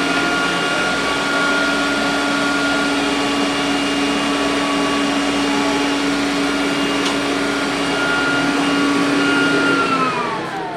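Robot vacuum cleaner's motor running with a steady whine. Near the end it winds down, its pitch falling as it shuts off.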